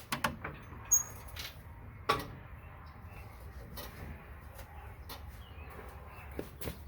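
Scattered metal clinks and knocks of hand tools working the belt tensioner on a riding mower, with a short high metallic ping about a second in and a sharper knock about two seconds in.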